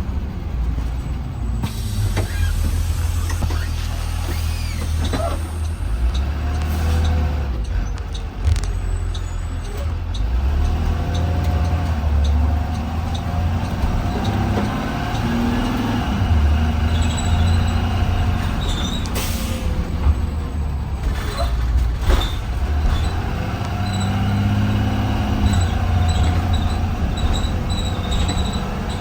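2020 Blue Bird Vision school bus engine running under way, heard from inside near the front, its low rumble shifting in pitch as the bus drives. Cabin rattles and a few sharp clicks come through, the loudest a little past two-thirds of the way in.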